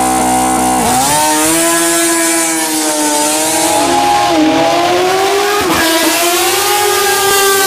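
Motorcycle engine running under way, its pitch rising and falling with the throttle, with brief dips about four and six seconds in.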